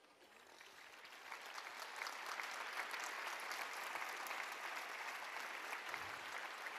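A large crowd applauding, the clapping swelling over the first two seconds and then holding steady.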